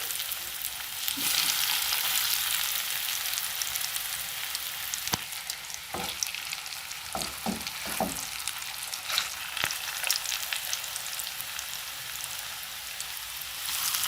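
Breaded panée cutlets frying in a shallow layer of oil in a pan: a steady sizzling hiss with scattered sharp crackles and pops.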